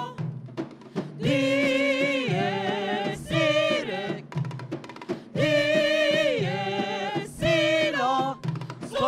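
Mixed choir of men and women singing long held notes with vibrato, accompanied by frame drums (daf and riq) striking between the phrases.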